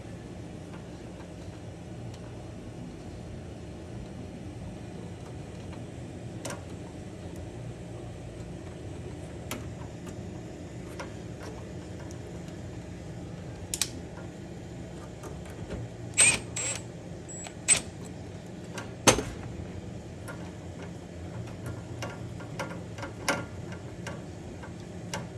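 Steady low hum with scattered sharp metallic clicks and clinks, a cluster of louder ones about two-thirds of the way through: tools and metal fittings handled while a replacement stove burner gas valve is fitted and its gas line threaded back on.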